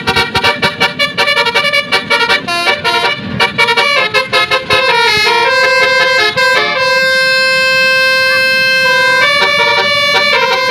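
Bus 'telolet' musical air horn playing a quick tune of short tooted notes, then holding one long note for about two seconds, then another held note near the end.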